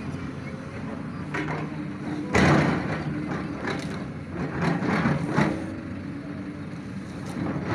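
An engine running steadily, with louder rough bursts about two seconds in and again around three and a half and five seconds in.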